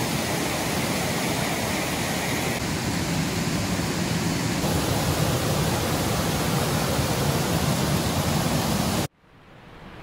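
Peaty burn water rushing over a rocky cascade in a steady, loud rush. About nine seconds in it cuts off suddenly and a much fainter rush of falling water follows.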